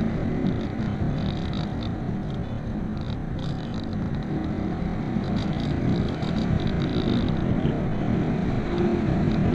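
Steady rush of air around a glider in flight, buffeting the microphone, with light crackles over it.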